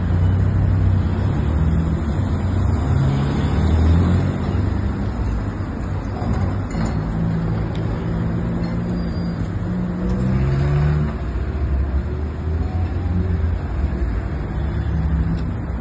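Street traffic: car and van engines running and passing on a road, a steady low rumble with shifting engine tones.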